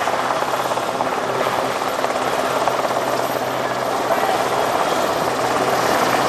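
Westland Sea King ASaC7 helicopter flying, its twin Rolls-Royce Gnome turboshafts and main rotor making a loud, steady rotor beat with engine noise, getting a little louder near the end.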